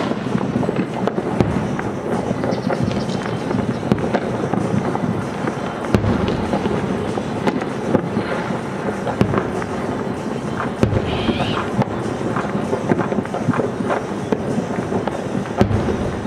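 Aerial firework shells bursting overhead, a series of sharp bangs over a continuous dense rumble.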